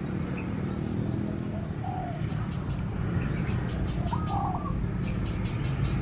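Spotted dove cooing, with a clear phrase about four seconds in and fainter notes earlier. Underneath are quick high chirps and a steady low rumble.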